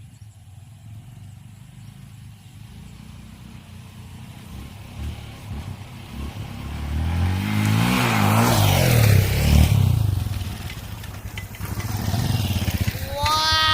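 A motorcycle passing by: its engine grows louder about six seconds in, peaks, and fades again over a few seconds. A short high arching call is heard near the end.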